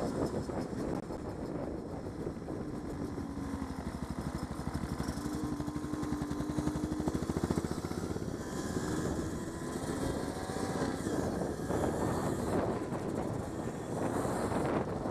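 Trail motorcycle engine running at low speed as the bike is ridden, heard close up from the bike itself. Its note holds fairly steady for the first half and then rises and falls with the throttle on the rougher track.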